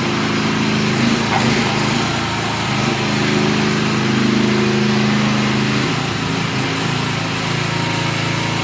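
The 13.5 HP Briggs & Stratton engine of a MIVA VA13 mini excavator running steadily, its tone shifting a little about three and six seconds in.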